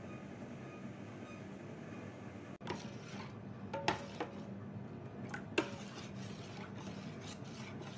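Metal spoon stirring a white flour mixture in a stainless steel bowl, with a few sharp clinks against the bowl, the loudest about four and five and a half seconds in.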